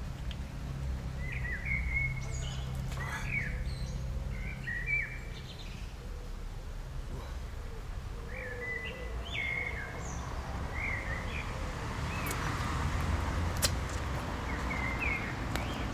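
Small songbirds chirping, short calls in little groups every second or so, over a steady low background rumble.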